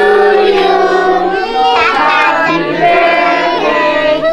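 A group of children singing a song together in unison, holding long notes.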